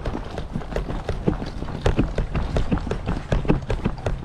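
Footsteps of a person running over the ground, several quick irregular steps a second.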